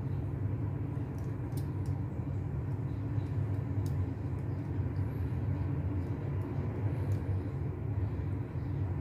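Steady low background rumble, with a few faint short clicks as wires are fitted by hand into the slots of an Ethernet keystone jack.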